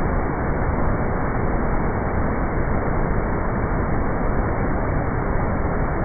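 Whitewater rapids churning over boulders below a waterfall: a steady, dull rush of water noise with no high hiss.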